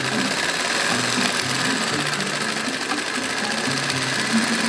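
Sewing machine running at speed, a steady fast rattle of stitching.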